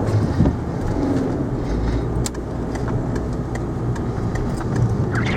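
Car engine and road noise heard from inside the cabin while driving: a steady low rumble, with a few light clicks.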